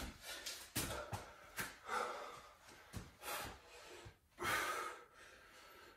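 A person breathing hard from exertion: a run of short, sharp breaths, the longest and loudest about four and a half seconds in.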